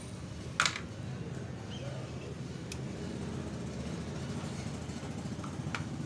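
Steady low background rumble, with one sharp click about half a second in and two fainter clicks later, from wires and a wire cutter being handled on a workbench.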